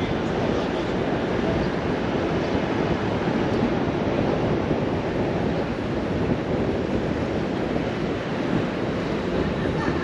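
Steady street din of traffic and crowd voices blending into one even rumble.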